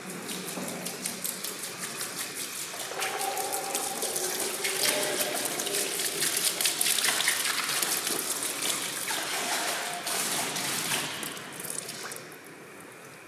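Dark liquid pouring and splashing into a shallow basin already filled with liquid, a steady wet rush that grows louder through the middle and dies down near the end.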